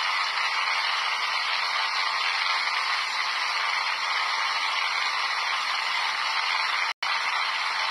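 Steady, even static-like hiss with no low rumble, cutting out for an instant about seven seconds in.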